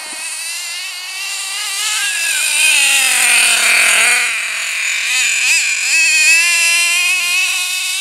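HPI F4.6 two-stroke nitro engine of an RC monster truck running at high revs as the truck drives close by. Its pitch slides down as it passes, dips and rises a few times with quick throttle changes, then holds steady as the truck pulls away.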